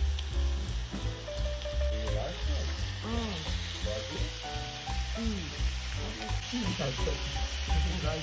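Thin slices of beef sizzling in hot melted beef tallow in a sukiyaki pot, the hiss growing brighter about six and a half seconds in.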